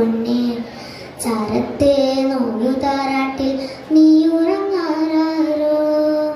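Children singing a slow melody in long held notes, with short breaks between phrases. The last note is held for about two seconds and then stops.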